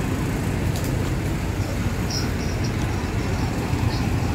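Steady low rumble of bus engines running nearby, with a few short high-pitched chirps about two seconds in.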